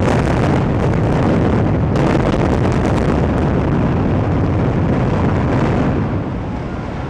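Building implosion: a rapid run of sharp cracks from the demolition charges in the first few seconds, over a continuous rumble as the high-rise collapses. The rumble eases after about six seconds.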